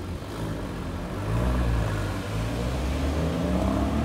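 Sports car engine accelerating away from the lights, loudening and climbing in pitch about a second in, dropping back briefly a little after two seconds, then climbing again.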